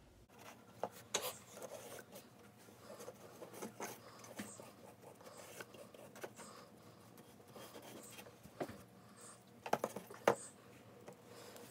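Paintbrush stroking paint onto a wooden canvas stretcher frame: soft, scratchy bristle strokes with scattered light taps, and a short cluster of sharper knocks near the end.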